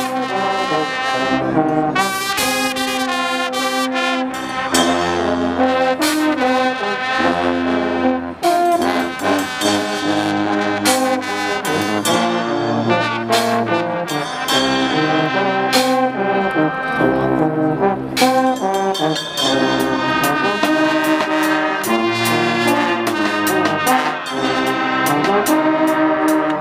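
A Guggenmusik carnival brass band plays loudly: trumpets, trombones and sousaphones carry the tune over bass drum and cymbal hits.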